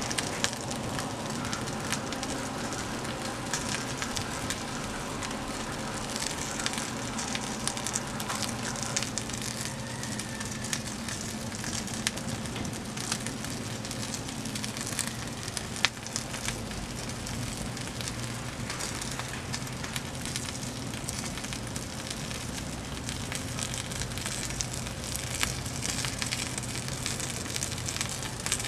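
Open fire crackling as cardboard food and beverage boxes burn against a log, with scattered sharp pops and one louder pop a little past halfway.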